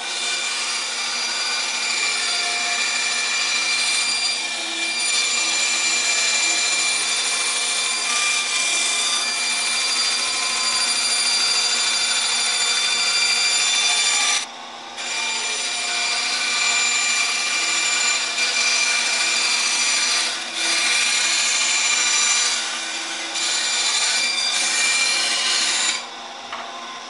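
Band saw cutting through a thin fibreboard sheet: a steady whirring rasp of the blade in the board, with a short drop to the free-running saw about halfway through. It falls back to the saw running without a cut near the end.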